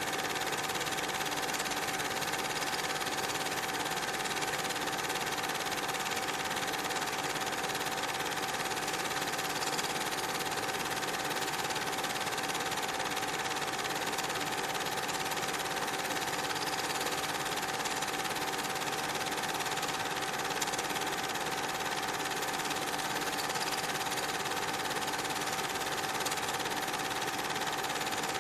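Steady mechanical whirr with a constant high-pitched whine over an even hiss, never changing in level.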